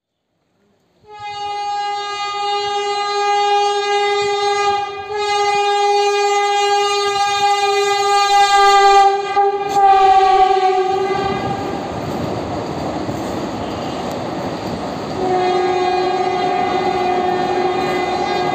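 A Vande Bharat Express electric trainset sounds its horn in a long blast at one steady pitch, broken briefly once, as it approaches while running through the station without stopping. Then comes the noise of the train running past, and the horn sounds again near the end.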